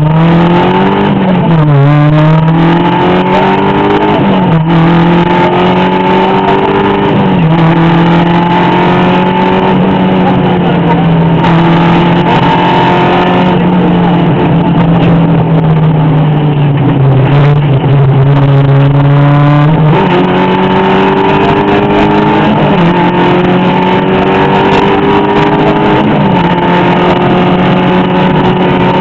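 Rally car engine pulling hard and shifting through the gears, heard from inside the car. Its pitch climbs in long rises, each cut by a sudden drop at a gear change, about half a dozen times.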